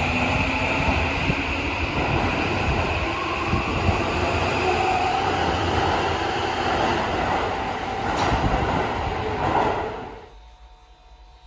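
Toei Asakusa Line subway train running along the platform, a steady loud rumble of wheels on rail with a faint motor whine. Near the end the sound drops away abruptly to a quiet hum.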